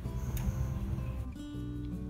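Background instrumental music with plucked acoustic-guitar notes.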